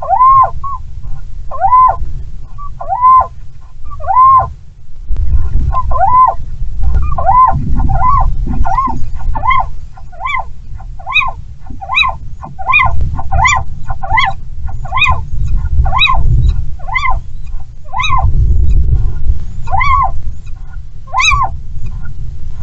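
Little owl giving a string of short, arched, rising-and-falling calls, about one a second at first and then about two a second from about six seconds in. Strong wind rumbles on the microphone underneath.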